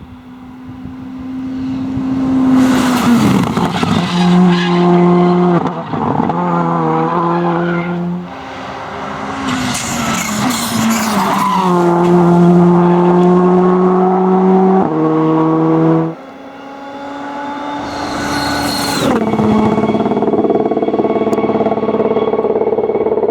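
Rally cars going past one after another, three in turn. Each engine is heard at high, steady revs, then drops in pitch as the car brakes, and goes on in stepped pitch jumps as it changes gear, with bursts of tyre and exhaust noise.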